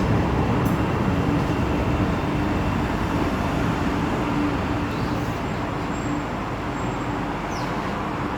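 Alstom Citadis Spirit light rail train of the O-Train Confederation Line running, a steady rolling rumble with a faint motor hum that fades past the middle as the train slows toward a station.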